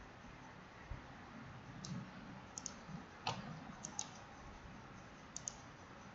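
Computer mouse clicking, faint, about seven or eight sharp clicks, several of them in quick pairs, from about two seconds in.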